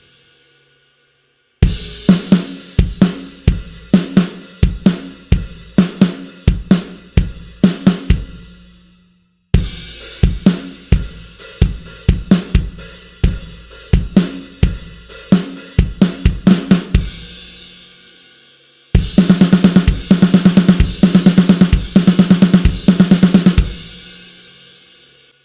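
Sampled drum kit from a Kontakt virtual-instrument library playing three short grooves one after another, with kick, snare, hi-hat and cymbal hits. The third groove, starting about nineteen seconds in, is a fast run of tightly spaced, even hits; each groove ends with its cymbals ringing out.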